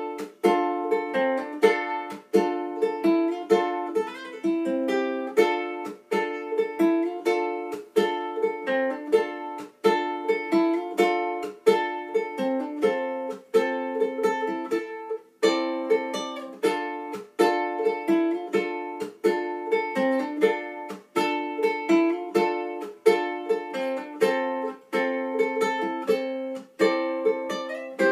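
Godin MultiUke Koa tenor electro-acoustic ukulele played as a solo piece of plucked chords and melody notes, amplified through a Cornell valve acoustic amplifier with a Boss AD2 acoustic preamp. Notes follow one another in quick succession, with a short break about halfway.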